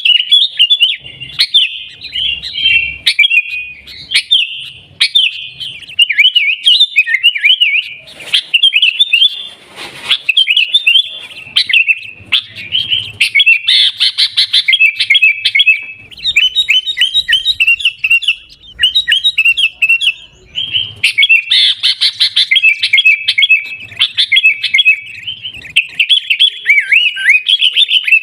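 Sooty-headed bulbul (kutilang) chattering and singing without pause, a fast run of short, warbling chirps.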